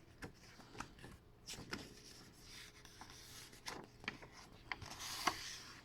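Faint rustling and small clicks of a paperback picture book being handled as its pages are turned, with two louder swishes of paper, one about a second and a half in and one near the end.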